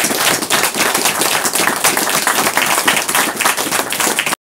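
Small audience applauding, dense steady clapping that cuts off abruptly near the end.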